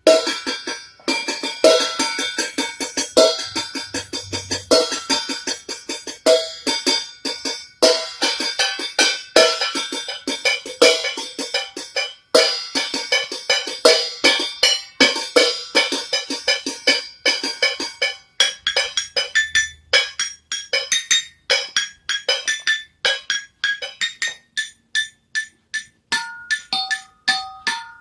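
Kitchen utensils played as percussion instruments: a fast, steady stream of struck, ringing 'tang teng ting dung' tones. Near the end the strikes thin out into a few separate pitched notes.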